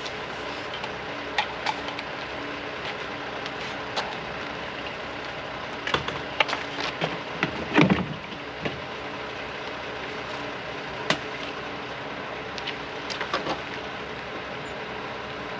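An engine runs steadily in the background while scattered knocks and clunks come through, the loudest cluster about eight seconds in.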